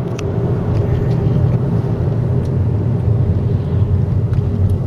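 A moving car heard from inside the cabin: a steady low rumble of engine and tyres on the road, with a few faint clicks or rattles.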